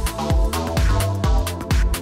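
Electronic dance music with a steady kick drum, a little over two beats a second.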